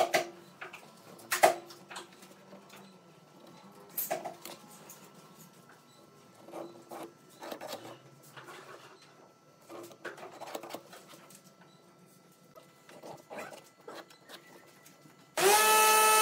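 Steel rule and try square knocked and set down on a wooden block and bench, with a pencil scratching along them; a dozen or so separate taps and scrapes. Near the end a power tool's motor starts suddenly and runs with a steady loud whine.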